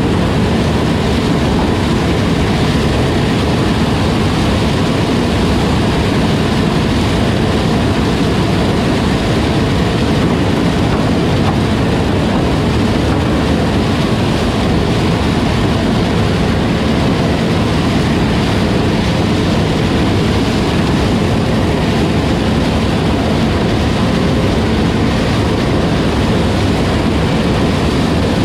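Heavy farm harvest machinery running steadily under load, a constant loud diesel drone with no change in pitch or level.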